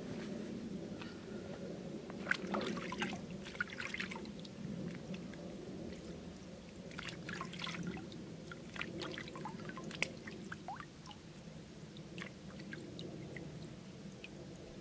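Hands splashing in a stone water trough, rinsing wild mushrooms, with scattered splashes and drips of water falling back into the trough, over a steady low background noise.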